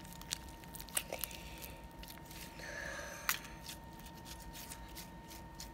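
Gloopy pink slime with shaving cream worked in, squeezed and pulled between a child's hands: faint, irregular sticky clicks and squelches.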